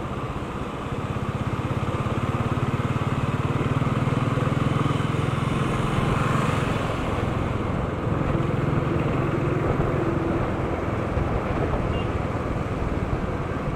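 A motorcycle engine running steadily in traffic, heard from the rider's seat, with a low engine hum under wind and road noise. The engine note grows stronger about two seconds in and again about eight seconds in.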